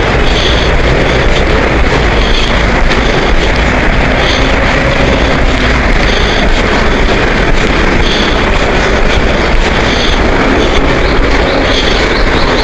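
A bird calling about every two seconds, a short high call each time, over a loud steady rushing noise.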